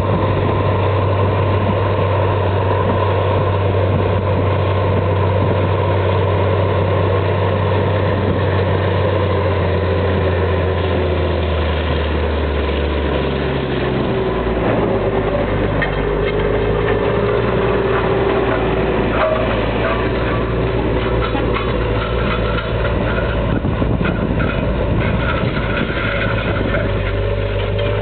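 Diesel engine of a Versatile 2375 four-wheel-drive tractor running steadily under load while pulling a wide cultivator-seeder. Its note drops in pitch about halfway through, as the tractor comes up close.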